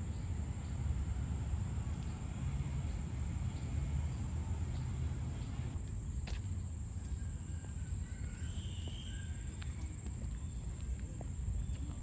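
Insects buzzing steadily in one high, unbroken band, over a low rumble.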